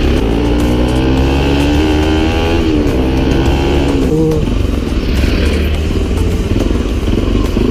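Motorcycle engine running under way, its pitch climbing steadily as it accelerates, then dropping about two and a half seconds in at a gear change, with another dip a little after four seconds.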